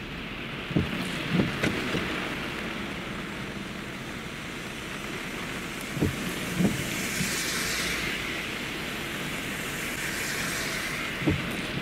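Heavy rain falling steadily, with car tyres hissing through water on a flooded road as vehicles pass, the hiss swelling in the second half. Several short dull thumps come in small groups, a couple of them spaced about half a second apart.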